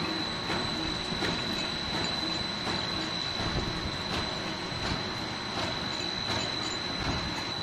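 Pet chew extrusion production line running: conveyor and extruder machinery with a steady high whine and a regular click about every three quarters of a second.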